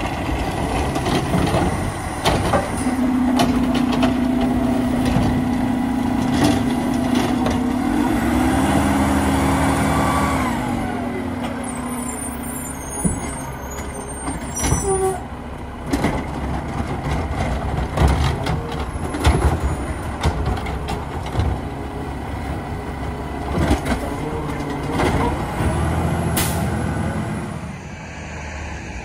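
McNeilus ZR automated side-loader on a Mack MRU recycling truck lifting and emptying a cart, with the engine and hydraulics running at a steady hum for several seconds and a hiss of air partway through. Clanks and knocks follow as the cart is set back down and the truck moves off.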